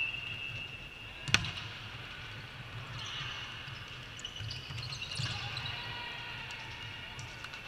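Volleyball serve: one sharp, loud slap of a hand striking the ball about a second in, followed by fainter ball contacts as the rally goes on. A short whistle tone ends just at the start.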